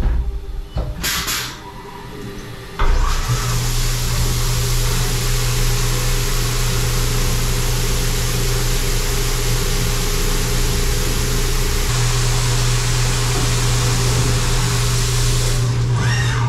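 CNC machining center boring the lower seal surface of an aluminum LS block: about three seconds in, the flood coolant comes on with a sudden loud, steady hiss over a steady low machine hum, and runs on unchanged. Before that, a few light knocks and clicks.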